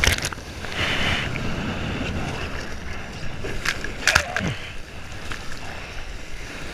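Seawater sloshing and splashing around an action camera held at the surface in the swell, with a hissing rush about a second in and a few sharp clicks of water striking the camera housing, the loudest about four seconds in.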